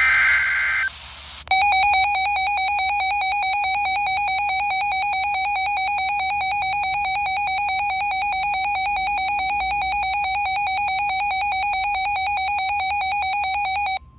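A short burst of SAME digital data tones from a NOAA Weather Radio alert header. After a brief gap comes a weather alert radio's alarm: a loud electronic tone that warbles rapidly between two pitches, steady for about twelve seconds before cutting off. It signals a new warning, here a flash flood warning.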